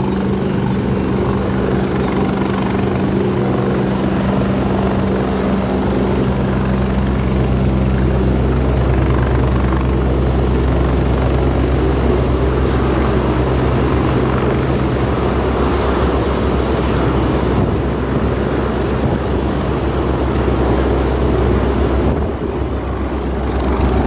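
Helicopter lifting off a helipad and hovering, its rotors and turbine engines running loudly and steadily, with a low rotor beat under a thin high whine.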